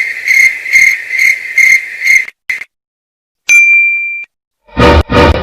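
A string of comedy sound effects: a high whistling tone pulsing about twice a second that stops about two seconds in, then a single bright ding held for under a second that cuts off, then two short loud noisy blasts near the end.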